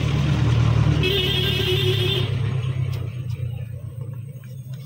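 Loud, steady low rumble of a motor vehicle's engine, fading over the last couple of seconds, with a wavering higher tone for about a second near the start.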